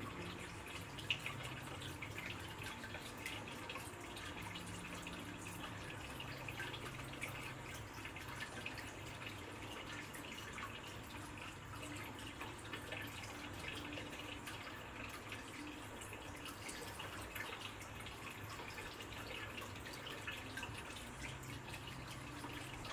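Water dripping and trickling steadily, with a single sharp click about a second in.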